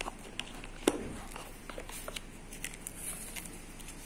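Handling noises as a smartphone is lifted out of its cardboard box: a sharp click about a second in, then light clicks and rustles of the box and the phone's plastic wrapping film.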